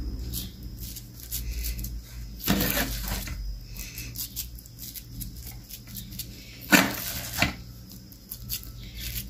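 Spoon scooping crumbly ground beef and potato filling and dropping it onto batter in a round metal pan: scattered soft clicks and scrapes, with a couple of louder scrapes about two and a half and seven seconds in.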